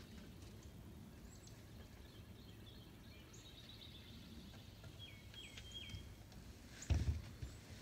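Faint bird calls, a few short chirps, over quiet outdoor background noise, then a single sharp thump about seven seconds in.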